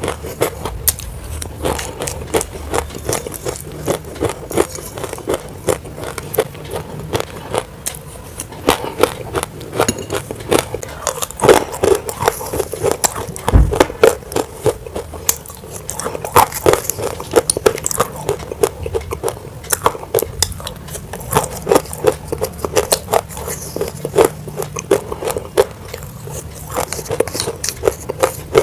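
Roasted grey clay being bitten and chewed, with dense, continuous sharp crunching and crackling.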